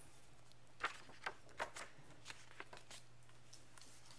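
Soft handling noise from a picture book being opened and its pages turned: a few faint paper clicks and rustles in the first three seconds, over a faint steady low hum.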